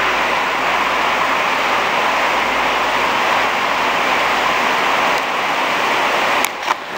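Torrential rain pouring down, a loud steady rush of water. About six and a half seconds in it briefly drops away, with a sharp click.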